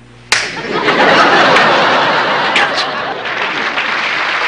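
Studio audience laughing, breaking out suddenly just after the start and running on for several seconds.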